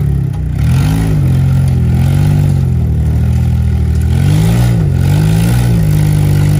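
Jeep Wrangler JK's engine working at crawling speed as the Jeep climbs over boulders, its pitch rising and falling in four short throttle blips, then settling to a steady idle near the end.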